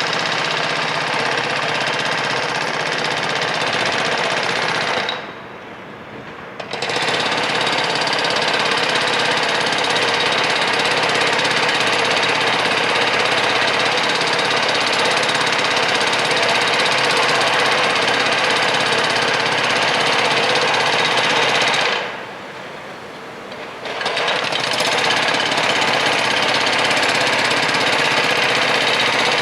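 Jackhammer running in long stretches, stopping twice for a second or two.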